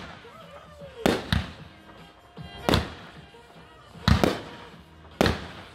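Consumer aerial fireworks firing from a ground tube and bursting overhead: five sharp bangs at uneven intervals, two of them in quick succession about a second in.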